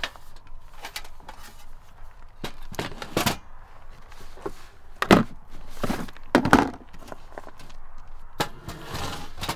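A portable gas camp stove and its hard plastic carrying case being handled as the stove is unpacked: a string of separate knocks and clacks, the loudest about five and six and a half seconds in.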